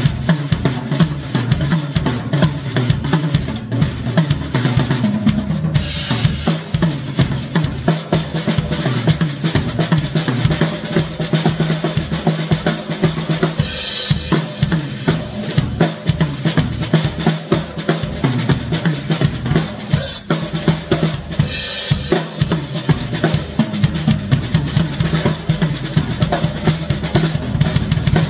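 Acoustic drum kit played as a solo: fast, dense strokes on the toms, snare and bass drum, with cymbal crashes about six, fourteen and twenty-two seconds in.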